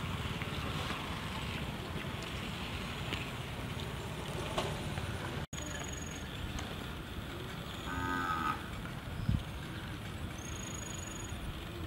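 A cow mooing once, briefly, about eight seconds in, over steady outdoor background noise.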